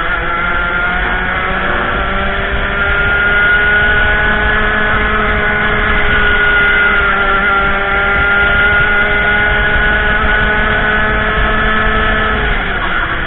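Racing kart engine heard from on board over wind hiss, its note climbing over the first few seconds and then held at high revs. The engine note cuts away about twelve and a half seconds in.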